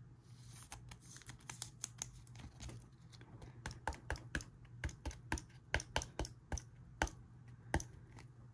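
A trading card being slid into a rigid plastic top loader, a soft scrape just under a second in, followed by a run of light plastic clicks and taps, about two or three a second, as the card holders are handled.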